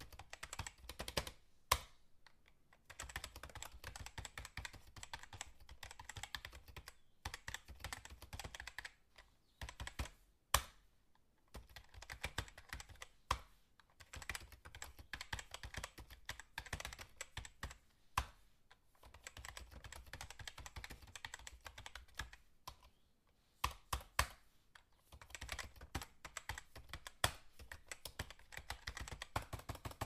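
Fast typing on a computer keyboard: rapid key clicks in runs of several seconds, broken by short pauses, with a few louder single key strikes standing out.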